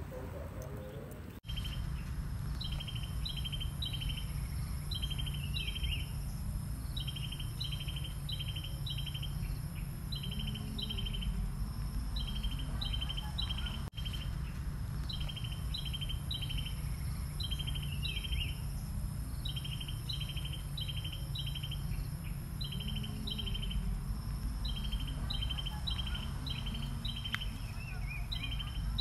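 Outdoor ambience: a bird repeating short phrases of high chirps every couple of seconds, over a steady high insect drone and a low rumble.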